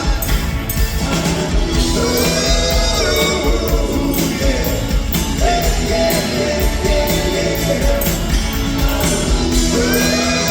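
Live rock band playing with sung vocals over a steady drum beat, heard through the room of a concert venue.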